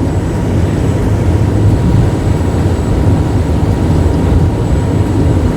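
Thames Clipper river boat's engines running at speed: a steady, loud, low din with a rushing haze over it.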